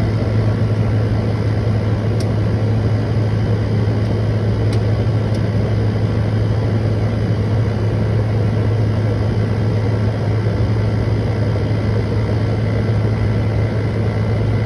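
General Electric 10,050 BTU window air conditioner running with its rotary compressor on: a strong, steady low hum with an even rushing noise over it.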